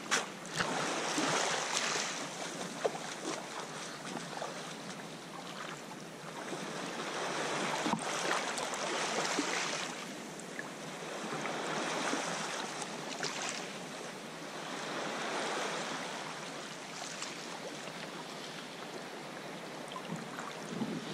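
Sea water washing and sloshing against rock walls around a kayak, swelling and easing every few seconds, with a few sharp clicks.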